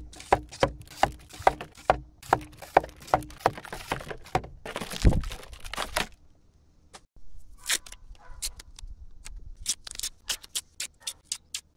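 Handling noise as canister firework shells are dropped into fiberglass launch tubes in a wooden rack: a quick run of clicks, taps and rustles, with a dull thud about five seconds in as a shell lands in a tube. After a short near-quiet pause, a second run of clicks and taps follows.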